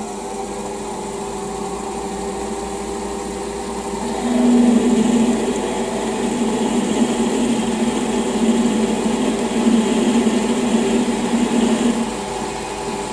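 Metal lathe running while a 5.5 mm twist drill in the tailstock chuck is fed into the spinning workpiece, drilling a hole. The drilling grows louder about four seconds in and eases near the end.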